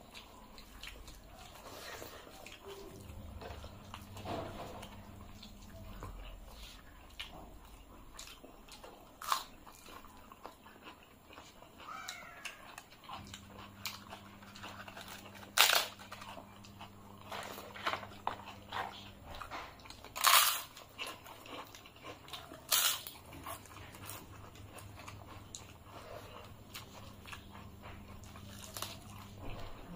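Close-up eating sounds: wet chewing and smacking of rice and curry eaten by hand, broken by sharp crunches of papad (fried lentil wafer) being bitten, the loudest three in the second half.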